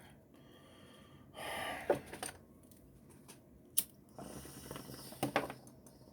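Handling noises: two stretches of rustling and scraping, with a few sharp clicks between and within them.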